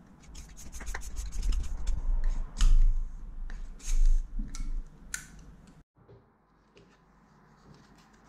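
Airsoft gearbox cylinder assembly handled at a workbench: rubbing, scraping and light metal clicks with dull bumps. The sound cuts off suddenly about six seconds in, leaving only a few faint clicks.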